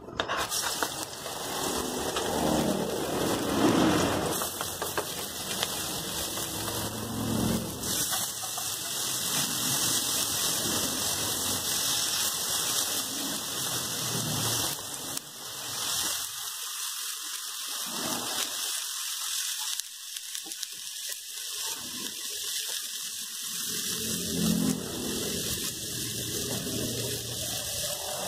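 Chopped tomatoes, onions, peppers and garlic sizzling steadily as they sauté in hot oil in a metal wok, with the occasional scrape and clatter of a wooden spatula stirring them.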